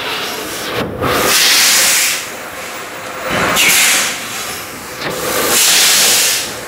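Automatic conveyor cup sealing machine running, with three long hisses about two seconds apart over a steadier mechanical noise.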